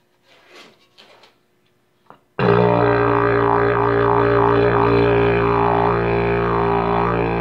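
The "big dragon", a large coiled wheel-thrown pottery horn, blown in one long low steady note that begins about two and a half seconds in, its upper tone wavering slowly while the pitch holds. Before it come a few faint rustles.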